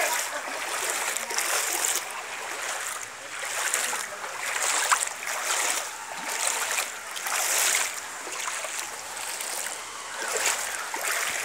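Fast-flowing water rushing and splashing close to the microphone, swelling and easing every second or so.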